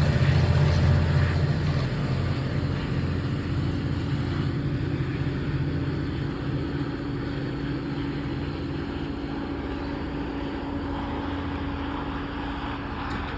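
A MARC commuter train pushed by a GP39 diesel locomotive pulls away, its low rumble fading steadily, with a steady hum underneath.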